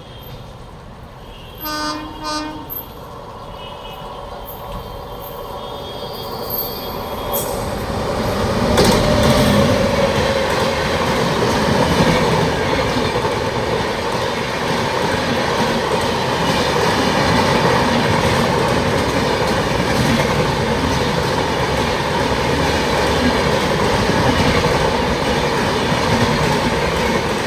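Locomotive horn of the Mumbai–Ahmedabad Shatabdi Express giving two short blasts about two seconds in. The express then passes at speed through the station, its rumble building and staying loud as the coaches go by.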